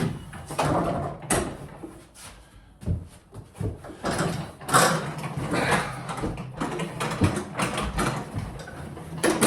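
Bath being handled and set into position: irregular clunks, knocks and scraping of the tub and its fittings, with louder knocks about halfway and near the end.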